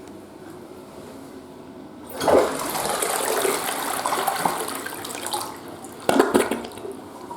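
Toilet flushing: a rush of water begins about two seconds in and eases off after a few seconds, with a second loud surge near the end.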